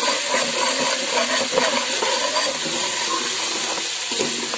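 Spice masala of garlic, ginger, green chilli and ground spices sizzling in hot oil in a pot, with a spoon scraping through it as it is stirred slowly. The steady sizzle is the masala frying (bhuna) with a little added water that keeps the spices from burning.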